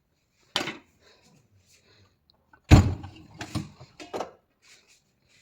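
A run of knocks and clatters: one sharp knock just under a second in, a heavy bang near the middle, then a quick cluster of lighter knocks.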